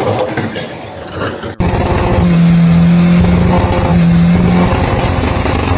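A loud engine running hard, its pitch held steady in three spells of a second or two each, starting suddenly after a cut about a second and a half in.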